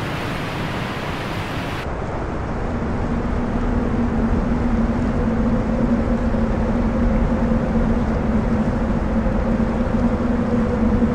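Heavy waterfall pouring around and onto a helmet-mounted camera: a dense, steady roar of falling water that grows louder after about two seconds. A steady low hum joins it at the same point and runs under the roar.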